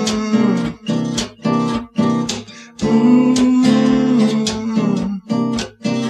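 Acoustic guitar strummed in a steady rhythm, each chord stroke sharp, with long held notes ringing over the strumming.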